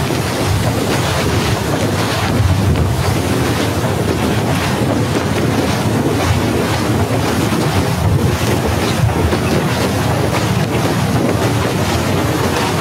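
Snowstorm wind blowing across a phone's microphone: loud, steady wind noise with a heavy low rumble.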